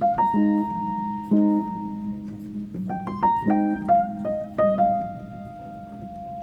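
Background piano music: a gentle melody over low sustained notes, with a quick run of notes about halfway through.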